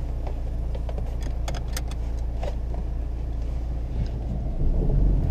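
Car engine idling with a steady low hum, with a few light clicks and clinks as a seat belt is pulled across and buckled. Near the end the engine gets louder as the car pulls away.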